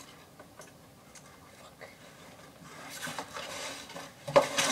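Hands working at small plastic parts: scattered light clicks and taps, then louder rubbing and rustling over the last couple of seconds, with one sharp knock near the end.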